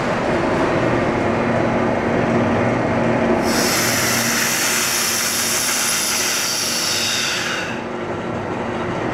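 Homogenizing emulsifying mixer running with a steady hum. About three seconds in, a loud hiss of air rushes in through the opened ball valve on the tank lid, drawn in by the tank's vacuum, and cuts off after about four seconds.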